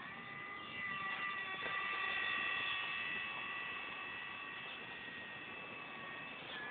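RC Snoopy Red Baron model plane's motor whining in flight. The steady high whine swells to its loudest about two seconds in, then fades a little and drops slightly in pitch near the end as the plane passes.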